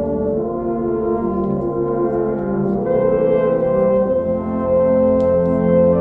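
Symphonic wind ensemble playing long sustained chords, moving to a new, fuller and slightly louder chord about halfway through.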